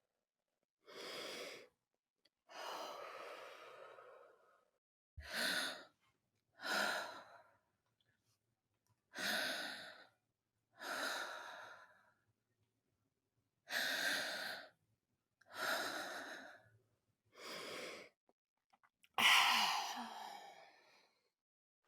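A person's slow, deep breathing: about ten separate breaths in and out, each followed by silence. The last breath, near the end, is the longest and loudest.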